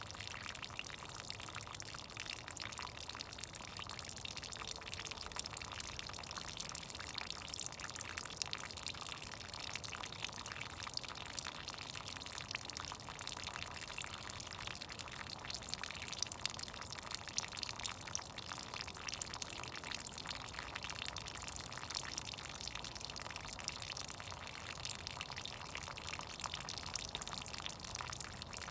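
Melting snow's meltwater dripping and trickling steadily, a dense patter of many small drops.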